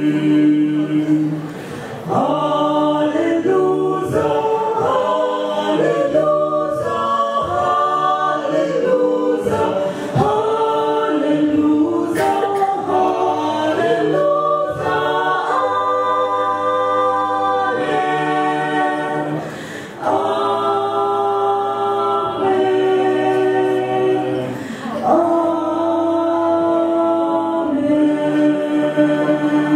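Mixed vocal quartet, two men and two women, singing unaccompanied in four-part harmony, phrase after phrase, with several long held chords and short breaks for breath between phrases.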